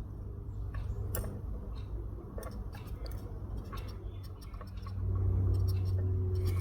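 Scattered light clicks and taps of small tools and metal parts being handled while a freshly spot-welded heating-element wire is pulled to test the weld, over a low steady hum that grows louder about five seconds in.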